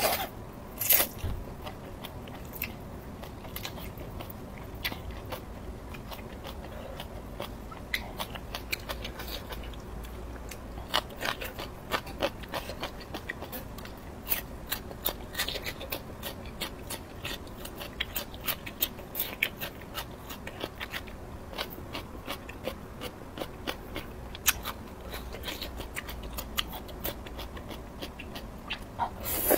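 Close-miked mukbang eating: a woman chewing extremely spicy noodles and crisp lotus root slices, with many short, sharp wet mouth clicks and crunches throughout. The noodles are slurped near the start, and a lotus root slice is bitten about halfway through.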